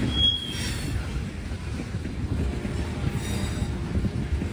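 Freight train cars rolling past with a steady rumble of wheels on the rails, and a brief high-pitched squeal just after the start.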